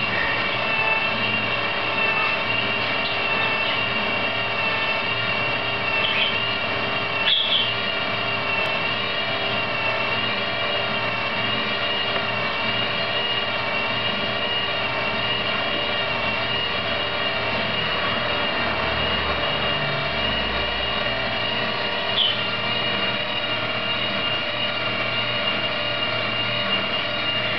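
Prototype counter-rotating propeller unit spinning in air on a test stand, its two propellers turning in opposite directions on a single shaft: a steady mechanical whirring drone with a high whine. A few brief faint squeaks come through it.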